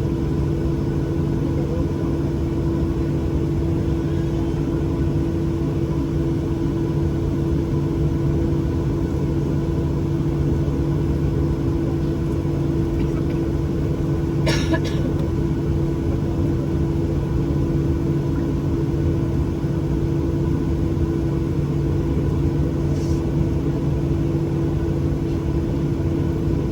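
Steady cabin drone inside a Boeing 737-800 airliner, a low rumble with a couple of constant hum tones in it. A short clatter comes about halfway through.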